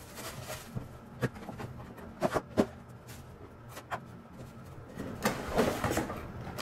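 A cardboard power supply box being opened and unpacked: a few light knocks and taps, then rustling of packaging and papers near the end.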